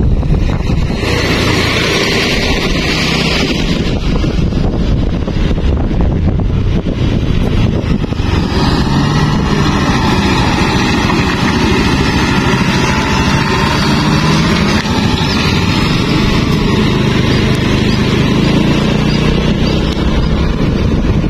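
Riding a motorcycle past and then behind concrete mixer trucks: a steady, loud rush of engines, tyres and wind on the microphone. A higher hiss rises for a few seconds about a second in. From about eight seconds on, a steadier engine drone comes through.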